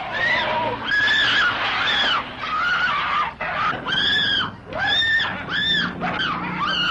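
A series of high-pitched shrieks, each one rising and then falling, coming about once a second, from a horror film soundtrack.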